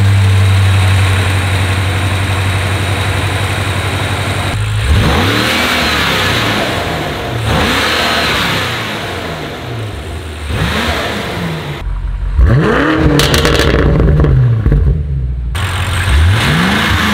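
BMW M5's S63 4.4-litre twin-turbo V8, fitted with Dinan carbon-fibre cold air intakes and turbo inlet pipes, idling steadily just after starting. About five seconds in it is revved in a series of short throttle blips, the pitch rising and falling each time.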